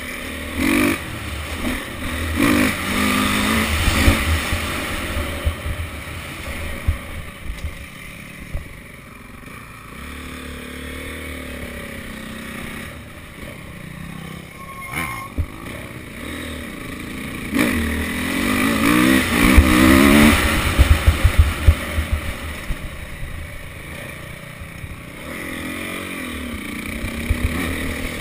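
Dirt bike engine heard from on board, revving up and down as the rider opens and closes the throttle over the dirt track, with harder stretches of throttle a few seconds in and again about two-thirds through. Wind buffets the microphone underneath.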